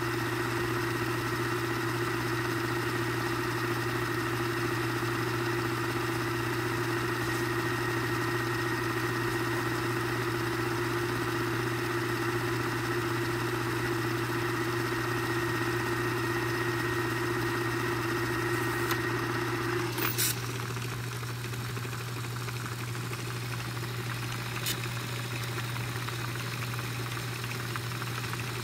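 Telex Copyette 1 & 3 cassette duplicator running a high-speed copy: a steady motor hum with a whirring tone from the tape drive. About two-thirds of the way through, the whir stops with a sharp clunk as the copy pass ends and the machine switches to rewind, leaving a quieter running sound with another small click a few seconds later.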